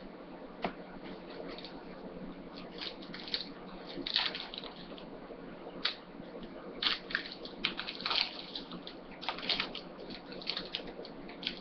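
Trading cards and pack wrappers being handled: irregular short rustles and crinkles, about a dozen, over a faint steady hum.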